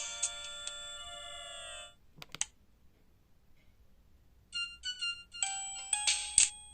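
Ringtones playing on an Alcatel OT-385JA mobile phone. One ringtone melody holds its last notes and cuts off about two seconds in. A few clicks follow, then a pause, and the next ringtone starts at about four and a half seconds, first with short high beeps and then a fuller melody.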